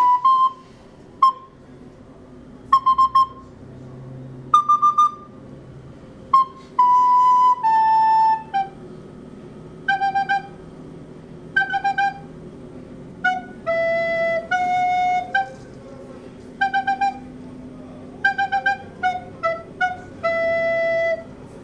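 Recorder played in short improvised phrases: bursts of quick repeated tongued notes between a few longer held notes. The melody sits higher at first and moves lower in the second half.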